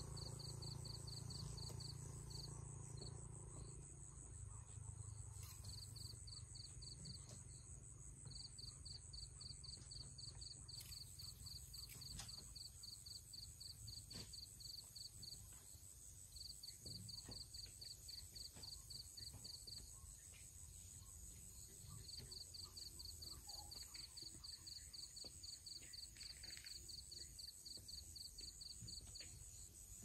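Crickets chirping faintly: a high, rapid pulsing chirp in trains of a few seconds with short gaps, over a steady higher insect drone.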